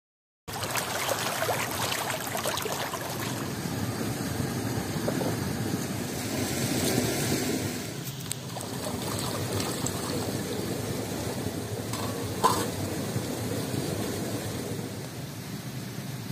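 Wood fire burning with a steady crackle, and a single sharp metallic clink about twelve seconds in.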